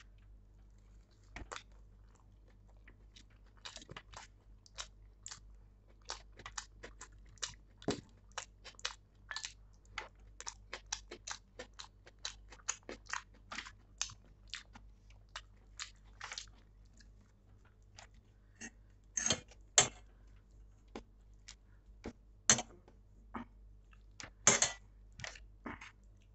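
Close-up eating sounds of pav bhaji: chewing with many short, irregular wet mouth clicks and smacks, with a few louder ones in the last few seconds.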